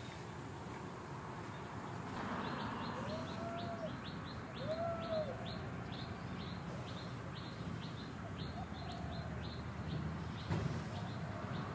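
Bird chirping in the trees: a rapid series of short, high, falling chirps, about three a second, starting about two seconds in and stopping near the end. Two short arched lower calls come a few seconds in, over steady low background noise.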